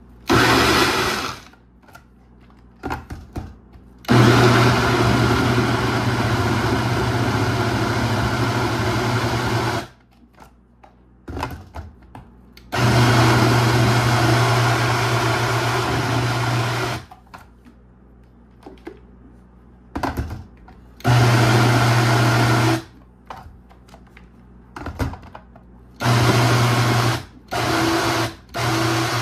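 Personal bullet-style blender (La Rêveuse) puréeing chunks of raw chicken breast, potato, eggs, onion and garlic into a smooth batter. The motor runs in bursts: a short pulse, two long runs of several seconds, then a few shorter pulses near the end, with small clicks and knocks between as the cup is pressed and shifted.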